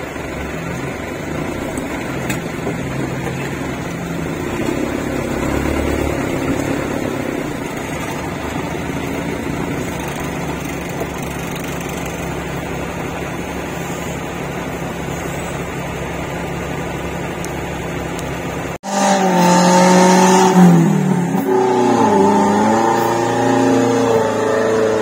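Off-road 4x4 engine running under load, heard from inside the cab as it crawls a muddy track, swelling for a few seconds early on. About nineteen seconds in, it cuts to a louder engine revving outdoors, its pitch rising and falling as the vehicle climbs.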